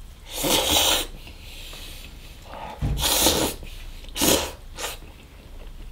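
A person slurping up pad thai noodles from chopsticks: a long slurp just after the start, another about three seconds in, then two short ones.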